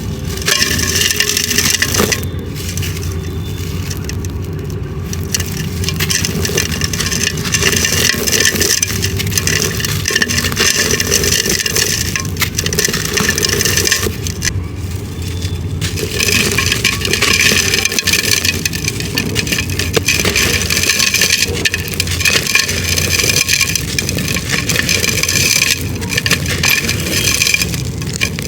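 Dried clay being crushed and crumbled by hand: continuous dry crunching and crackling that eases off briefly twice, over a steady low hum.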